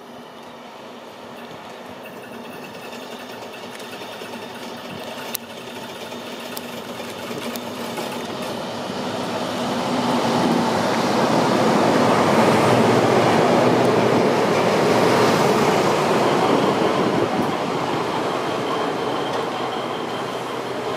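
DR class 118 diesel-hydraulic locomotive 118 552-9 running in with its train: engine drone and wheels on the rails grow steadily louder as it approaches, are loudest about halfway through as it passes close by, then ease off somewhat.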